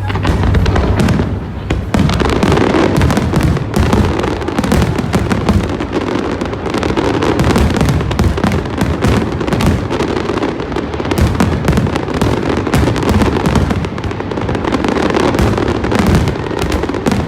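A large fireworks display going off in a dense, continuous barrage: rapid overlapping bangs and crackling over a steady low rumble of booms.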